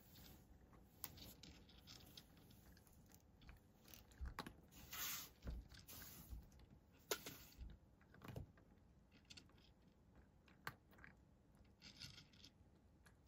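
Cat eating dry kibble from a dish, with quiet, irregular crunches and clicks as it chews.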